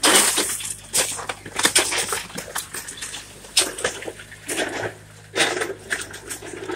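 A wood-framed shed being torn apart by a hydraulic excavator: a run of cracks, snaps and crashes of splintering boards and siding, the loudest right at the start. Under it runs the steady hum of the excavator's engine.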